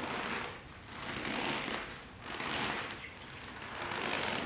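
A bag of potato starch squeezed by hand four times, about once a second, each squeeze a soft crunch: the classic Foley trick for the crunch of footsteps in snow.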